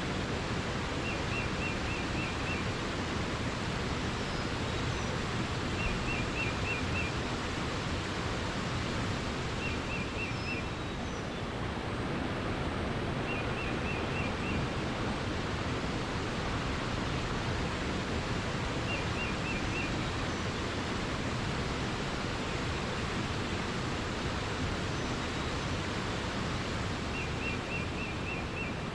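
Steady rush of running water, with a small songbird repeating a short, quick trill of five or six high notes every few seconds and a few faint higher chirps.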